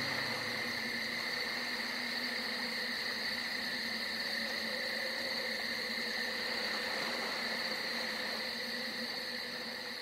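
Night chorus of insects, a steady high-pitched drone in two even bands with a fainter low hum beneath, beginning to fade out near the end.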